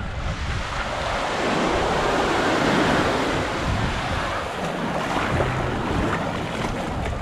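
Surf washing onto the beach, swelling about two seconds in and then easing off, with wind rumbling on the microphone.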